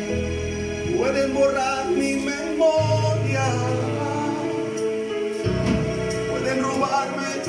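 A man singing into a handheld microphone over backing music, whose held bass notes change about every two and a half seconds.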